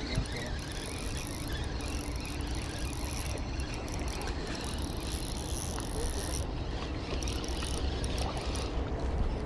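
A 2000-series spinning reel being cranked to bring in a hooked fish, making a steady mechanical whirr over a low rumble.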